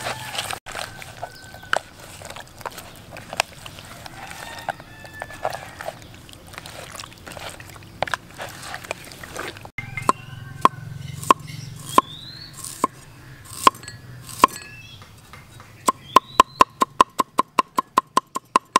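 Hands mixing chunks of cow heart with marinade in a plastic basin. About ten seconds in this gives way to a cleaver chopping ginger on a wooden chopping board. First come single chops a little under a second apart, then a fast even run of about five chops a second near the end, each with a short ring of the blade.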